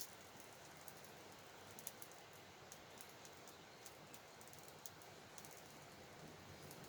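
Faint, sparse crackling and popping of a small wood campfire over a low hiss, the clicks coming irregularly a few times a second.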